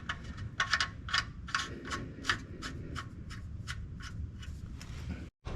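Socket ratchet clicking in an even run of light ticks, about four a second, as the oil drain plug is run back into the oil pan.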